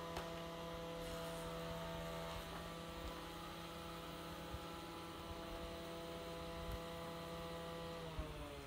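A steady, pitched machine hum with several tones stacked together; near the end its pitch starts to fall, as if the machine were slowing down.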